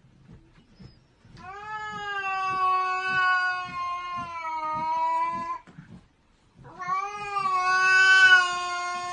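Cat yowling at another cat face to face: two long, drawn-out low yowls of several seconds each, about a second apart, a threatening caterwaul in a standoff.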